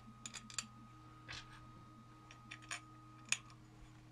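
Faint, irregular small metallic clicks and taps as steel T-nuts are slid into the slot of an aluminium extrusion, with a sharper click about three seconds in.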